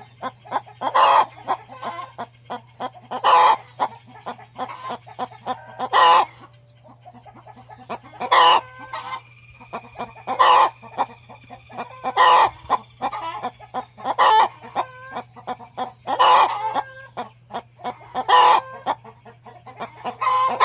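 Free-range hen cackling: runs of short clucks with a loud drawn-out call about every two seconds, repeating throughout. A steady low hum sits underneath.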